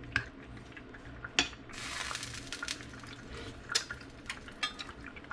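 Kitchen utensils clinking and knocking against pots and dishes, with a steady hiss of liquid for a couple of seconds from about two seconds in, over a low steady hum.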